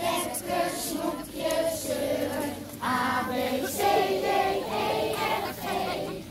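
A crowd of children and adults singing a Sint Maarten lantern song together, in phrases with short breaks between them.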